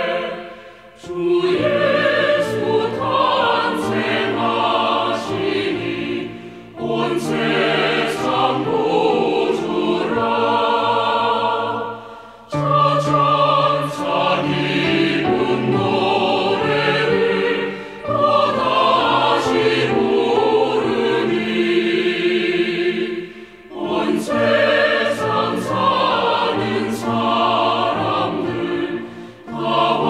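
A choir singing a Christmas carol, laid over the picture as background music, in phrases broken by brief pauses about every five to six seconds.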